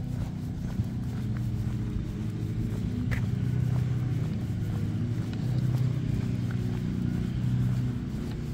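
Steady low engine hum of motor traffic on the road beside the sidewalk, swelling a few times as vehicles pass.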